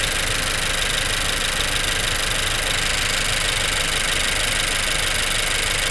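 2016 Honda Civic engine idling steadily, about two minutes after a cold start. The owner feels it is not running smoothly and suspects the VTC actuator.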